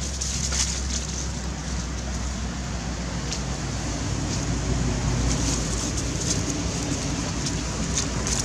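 Dry leaves crackling and rustling in scattered short bursts as monkeys move over the leaf litter, over a steady low rumble.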